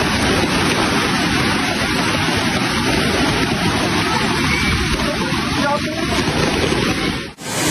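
Muddy river in flash flood rushing past, a steady, loud rush of water with heavy rain falling. The sound drops away briefly near the end.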